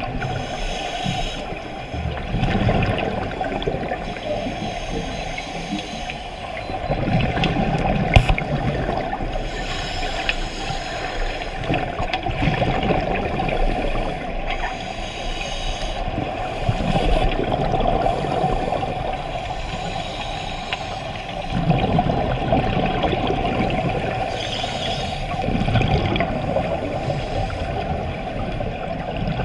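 Scuba regulators releasing exhaled air bubbles underwater, a continuous burbling that swells every few seconds with the divers' breathing.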